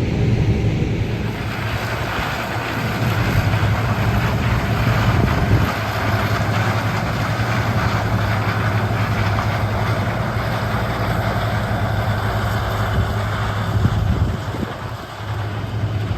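Diesel engine of a John Deere harvest machine running steadily, heard from inside the cab as a low hum with machine noise over it, briefly dropping about halfway through and again near the end.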